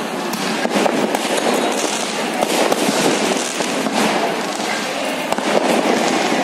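Firecrackers going off in irregular quick succession: many sharp cracks and pops over a constant noisy din.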